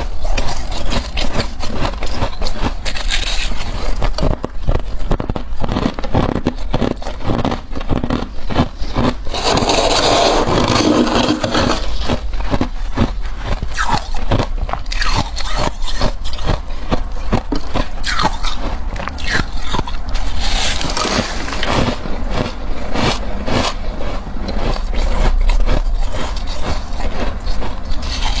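Freezer frost being scraped off the freezer wall: a quick, uneven run of scraping strokes with a crackly crunch, heaviest about a third of the way in.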